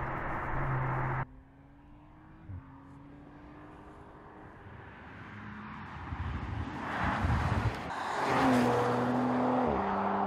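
An Audi RS5's 2.9-litre twin-turbo V6 driving past on the road: the engine note rises and drops back with each upshift. Tyre and engine noise swell as the car goes by, loudest about eight seconds in, then ease off as it pulls away.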